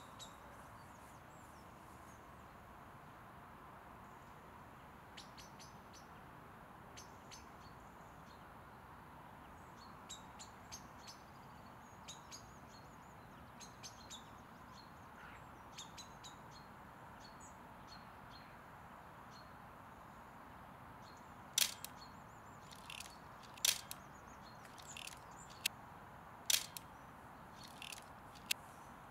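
Small birds chirping: short, sharp, high single notes scattered over a faint steady outdoor background, coming louder and more often in the last several seconds.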